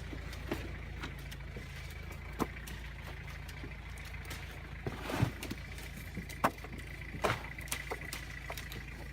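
A vehicle's engine running steadily with a low hum, with scattered clicks and knocks over it.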